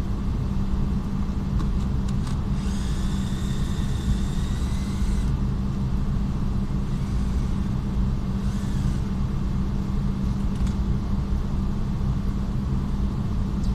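Steady low rumble of workshop background noise, with a high whine for about two and a half seconds starting about three seconds in, and a fainter, shorter one near the middle.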